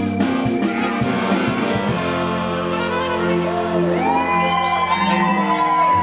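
Live rock band finishing a song: the full band with drums plays for about two seconds, then a final chord is held and rings out. Near the end the crowd starts to cheer with high whoops.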